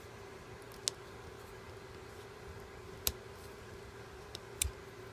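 A few sharp, isolated clicks of small metal parts over a faint steady hum: a drilled-out brass trigger lock being handled and worked apart.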